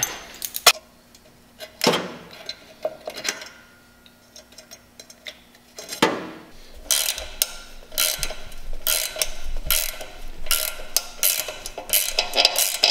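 Metal clicks and clanks from a bolt puller and hand tools being worked on an exhaust flange stud: a few separate clanks, then a fast run of ratcheting clicks from about seven seconds in.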